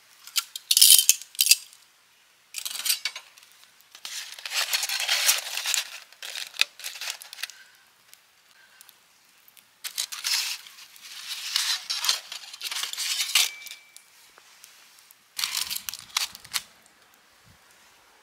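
Aluminium foil crinkling and rustling as a foil packet is handled and opened, in four separate bursts of handling with short pauses between.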